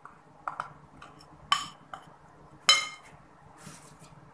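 Sugar going into a glass mixing bowl of beaten butter, with a few sharp ringing clinks of glass and utensil against the bowl about a second apart, the loudest near the end. A brief soft scrape follows.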